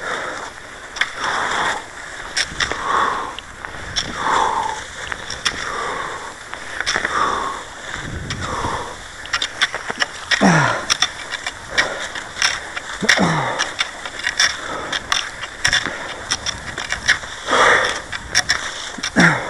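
Cross-country skis swishing in a groomed track in a steady stride rhythm, about one swish a second, with sharp clicks of pole plants on the snow. A few falling squeaks cut through near the middle and the end.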